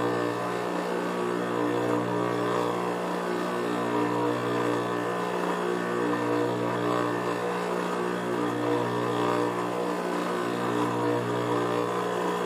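Juki industrial sewing machine running: a steady motor hum with brief dips now and then as the suede pieces are stitched.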